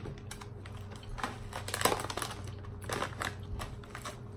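Granola crunching as it is chewed close to the microphone, with the plastic cereal bag crinkling: an irregular run of crisp crackles, loudest about two seconds in.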